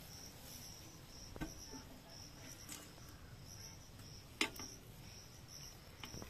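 Insects chirping in a steady, evenly pulsed high-pitched rhythm, with a few sharp clicks from hand tools being worked at the tractor's front wheel, the loudest about four and a half seconds in.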